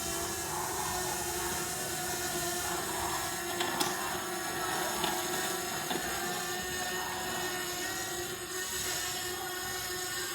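DJI Mavic Mini quadcopter's propellers whining steadily in flight, a hum with a higher hiss above it and a couple of faint clicks around four and six seconds in.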